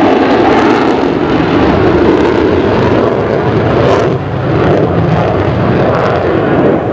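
Loud, steady jet noise from an F-14B Tomcat's twin GE F110 turbofan engines in flight, easing slightly about four seconds in.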